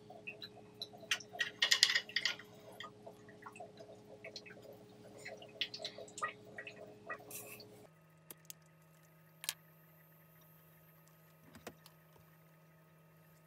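Small metal clicks and taps of steel forceps and cut fork pieces being shifted and set down on a soldering block, busiest about two seconds in. About eight seconds in they stop, leaving a faint steady hum with a few lone ticks.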